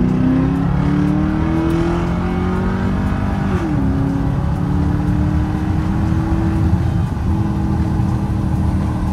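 Straight-piped exhaust of a 955-generation Porsche Cayenne with its mufflers deleted, under hard acceleration. The engine note climbs, drops at a gear change about three and a half seconds in, then climbs again.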